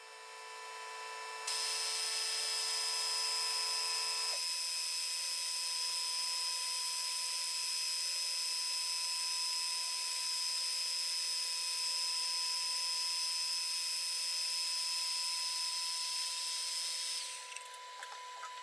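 Radial arm drill running, its twist drill cutting into a steel block with a steady high whine and hiss; the machinist says the bit is going blunt. Near the end the cutting sound stops while the machine's steady hum keeps running.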